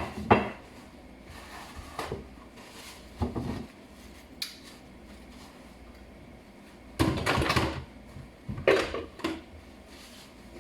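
Kitchenware being handled: a pot and utensils knocking and clinking in a handful of separate clatters, with one longer rattle about seven seconds in.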